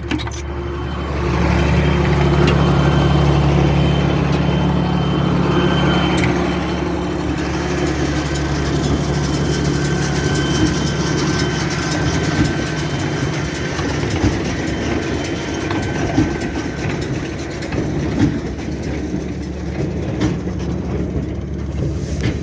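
John Deere tractor's diesel engine idling, throttled back, running steadily. It gets louder about a second and a half in, and a few short knocks come through in the second half.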